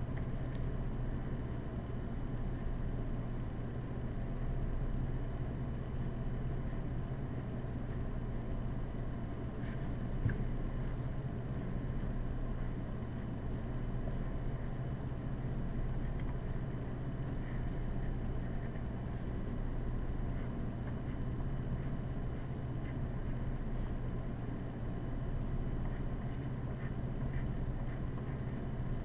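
Steady low background hum, with faint scratching of a pencil writing on paper.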